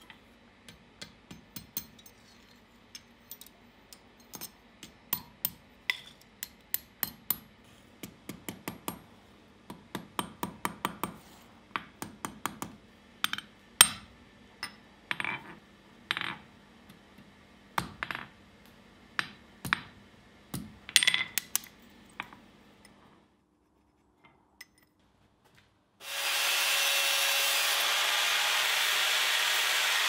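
Light hammer taps on hot steel against an anvil, many irregular ringing strikes, as the buckle tongue is bent around the buckle frame. After a short pause, a bench-mounted wire wheel starts running with a loud steady whir and hiss near the end.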